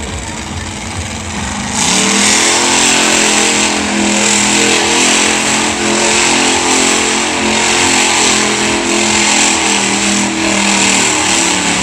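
Monster truck's supercharged V8 revving hard as the truck spins donuts. About two seconds in it jumps up sharply and then holds steady at high revs.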